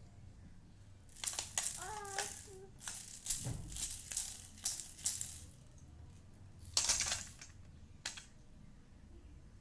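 A baby's toy rattle shaken in irregular bursts, rattling for a few seconds, then twice more briefly near the end. A short high baby vocal sound comes in about two seconds in.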